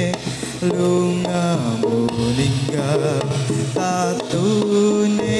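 Live jaranan music: a held, wavering melody line over drumming.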